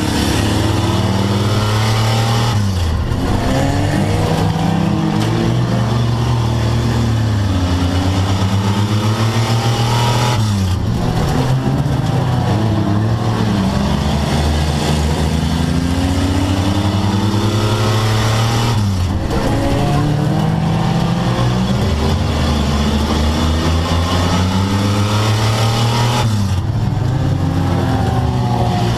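Front-wheel-drive stock race car's engine, heard from inside the stripped cockpit. It revs up and drops back over and over, with a sharp lift off the throttle about every eight seconds, four times.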